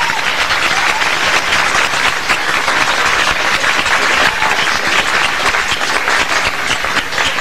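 An audience clapping together in steady, dense applause, with a voice or two calling out briefly near the start.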